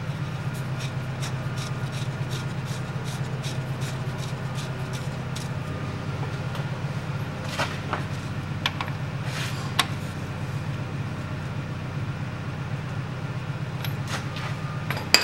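Steady low hum of the workshop, with a run of light metallic clicks over roughly the first six seconds as the rear differential's fill plug is tightened, then a few scattered ticks and knocks.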